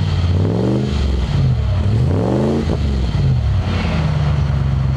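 Toyota 1UZ-FE V8 in a Land Rover Discovery blipped twice from idle, each rev rising and falling back, then settling to a steady idle, heard through its custom stainless rear muffler.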